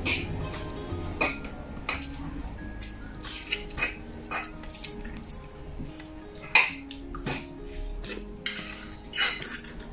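Forks clinking and scraping against bowls of instant noodles in irregular sharp clicks, with a few short slurps of noodles.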